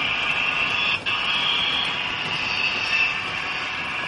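HO-scale model train running on the layout: a steady mechanical running noise from wheels on the rails and the small motor and sound speaker, with a momentary dropout about a second in.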